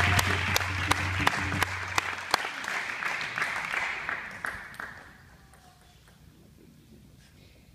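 Audience applause, dense clapping that thins out and dies away about five seconds in, leaving a quiet hall.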